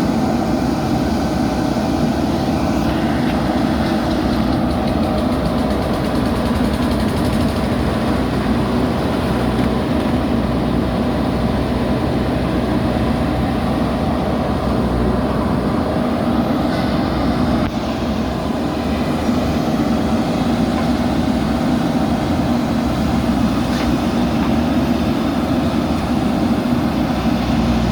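JCB backhoe loader's diesel engine running steadily, with a brief slight drop in level a little past halfway.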